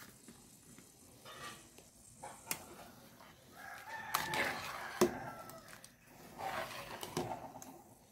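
A rooster crowing twice: a longer crow about halfway through and a shorter one near the end. A sharp knock, the loudest sound, lands near the end of the first crow.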